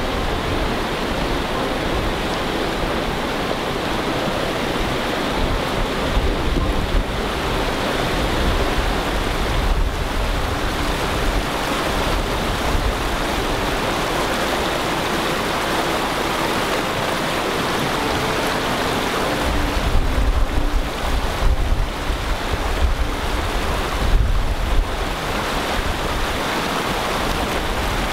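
Wind blowing hard across the microphone: a steady rushing hiss with gusts of low rumbling buffeting about six seconds in and again from about twenty seconds on.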